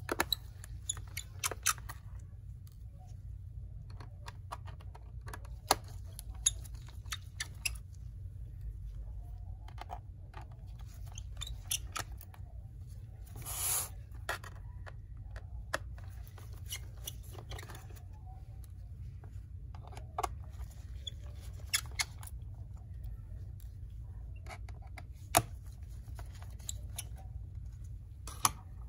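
Scattered small clicks and taps of a pentalobe screwdriver working the screws out of a MacBook Air's aluminium bottom case and the tiny screws being set down, with a brief scraping rustle about halfway through as the laptop is slid and turned on the table.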